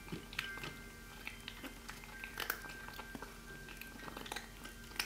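Faint scattered ticks and soft rustles from small kittens shifting about on towels in a box, over a low steady hum.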